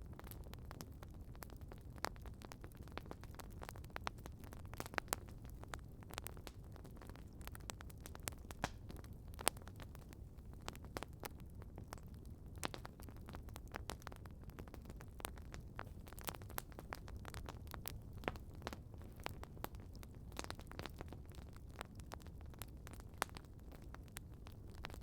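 Wood campfire crackling: irregular sharp pops and snaps over a low, steady rumble, with one louder pop about nine seconds in.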